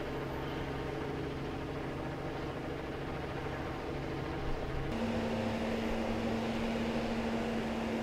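Steady hum of idling vehicle engines with a few held tones. About five seconds in it changes to a slightly louder hum with a new steady tone.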